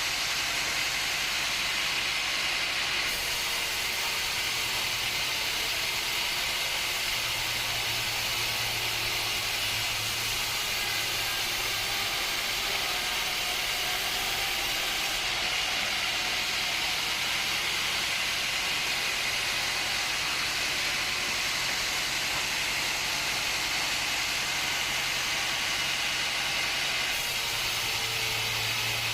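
Sawmill machinery running: a steady, loud hiss with a low hum that swells and fades at times.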